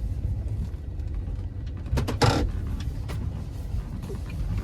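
Car driving, heard from inside the cabin: a steady low road and engine rumble, with a brief clatter of clicks about two seconds in.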